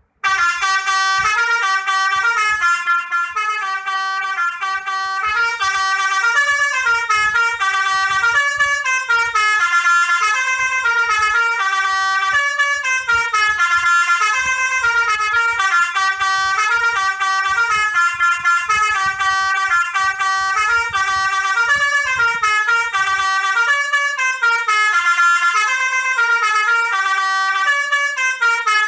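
Basuri 'telolet' musical horn playing a continuous melody, its tones stepping up and down note after note with no breaks.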